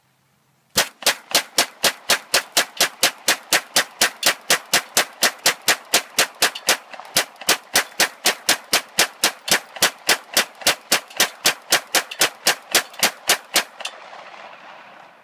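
Glock 19 9mm pistol fired rapidly and evenly, about four shots a second, emptying a 50-round drum magazine in one long string. The shooting starts just under a second in and stops about a second and a half before the end.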